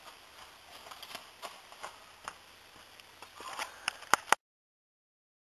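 Footsteps on dry fallen leaves and ground, about two or three a second, coming closer, then a few loud clicks close by before the sound cuts off abruptly.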